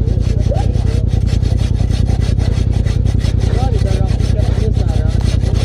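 Hand pruning saw cutting through a downed tree trunk in quick, even back-and-forth strokes, the teeth rasping through the wood. A steady low rumble runs underneath.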